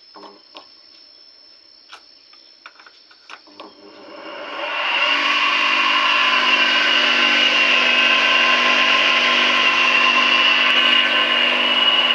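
Homemade leaf chopper's electric motor switched on about four seconds in, spinning up within a second and then running steadily at full speed, its blades turning empty, with a steady high-pitched whine. Before it starts, a few light clicks and knocks.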